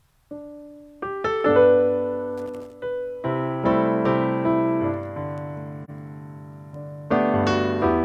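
Piano playing the opening of a hymn accompaniment: a single note just after the start, then chords building from about a second in, with low bass notes joining about three seconds in and a fresh chord struck about seven seconds in.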